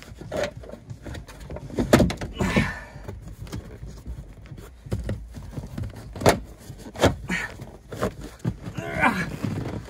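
Scattered knocks and clunks of hands and tools working loose a car's rear-seat trim and fittings, with the sharpest knocks about two seconds in and just after six seconds.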